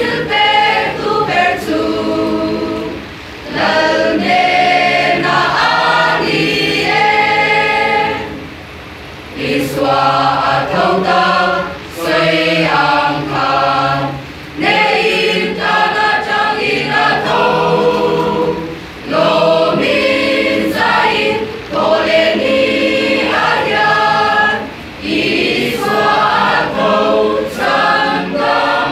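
Mixed choir of women's and men's voices singing a hymn, in phrases of a few seconds with short breaks between them.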